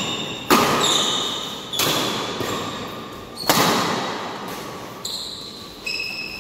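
Badminton rackets striking a shuttlecock in a doubles rally: four sharp hits about one and a half to two seconds apart, plus a lighter one near the end. Each hit echoes in the hall.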